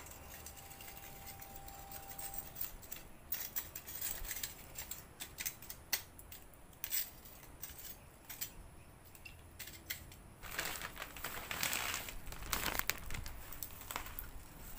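Rustling and crinkling with scattered sharp clicks, as of things being handled, with longer stretches of rustling from about ten to thirteen seconds in.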